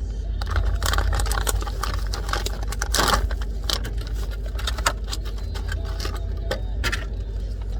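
Toy packaging being handled: irregular crinkling, clicks and rustles of plastic and cardboard, over a steady low hum.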